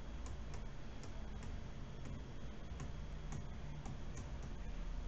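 Stylus tapping faintly on a tablet screen during handwriting: a scatter of small, irregular ticks over a low steady background hum.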